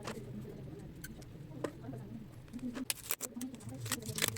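Light sharp clicks and taps, several in quick succession in the second half, over a low murmur.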